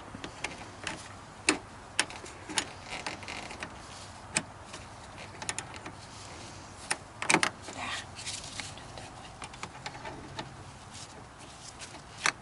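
A wrench clicking and clinking against a truck battery's terminal bolt while a battery cable is tightened: scattered sharp metallic clicks, with a quick cluster about seven seconds in.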